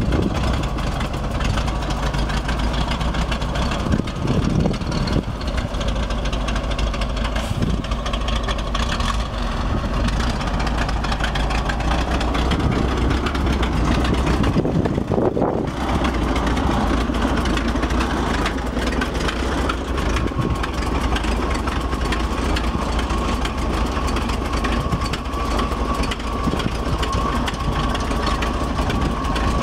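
1968 Chevrolet C70 grain truck's engine idling steadily, with a thin steady whine joining after about twenty seconds.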